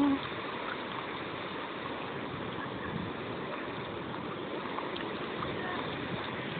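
Steady wash of sea surf breaking on a sandy beach, heard as a soft even hiss.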